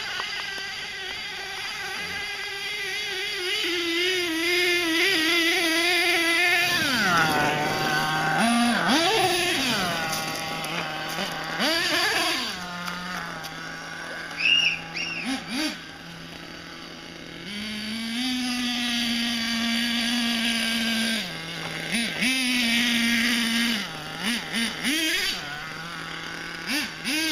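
HPI Savage X 4.6 nitro RC truck's small two-stroke glow engine, revving and dropping back to idle again and again as the truck is driven. It holds high-pitched runs for several seconds at a time and gives quick throttle blips in between.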